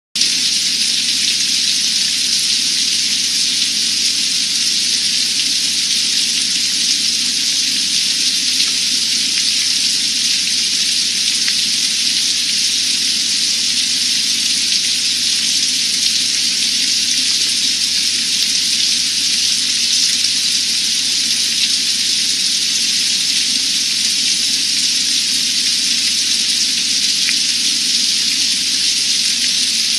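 Hard rain falling steadily on a pond's surface and the surrounding trees, an even, unbroken rush of noise.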